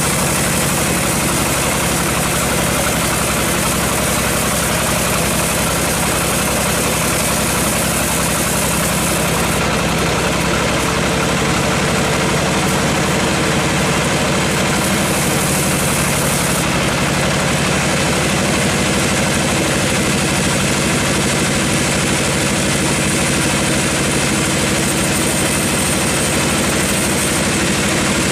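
Sawmill machinery running steadily, a continuous engine-driven drone with a hiss over it and no breaks; the hiss changes slightly about ten and seventeen seconds in.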